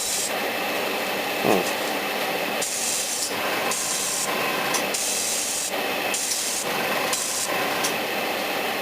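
Airbrush spraying paint onto a plastic model part, its hiss of air swelling and dropping as the trigger is pressed and eased off about once a second, over a steady hum.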